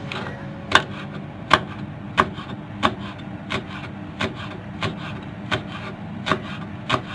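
Kitchen knife chopping a spring onion stalk on a wooden cutting board: evenly spaced knocks of the blade striking the board, about one and a half a second.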